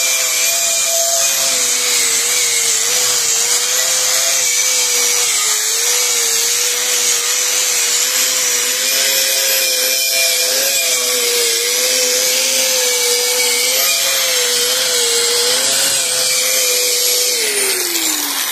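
Bosch angle grinder with a wire brush running steadily, scouring slag off a weld seam, a steady whine over a dense scratching hiss. Near the end it is switched off and the whine falls as it spins down.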